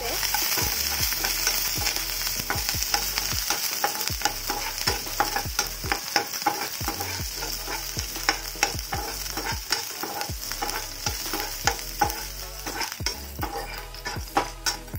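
Garlic, green chillies and curry leaves sizzling in hot oil in a kadhai, with a steady hiss, while a spatula stirs them, scraping and tapping against the pan many times in an irregular rhythm.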